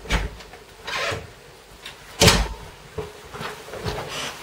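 A few scattered knocks and thumps in a small room, the loudest a heavy thud about two seconds in.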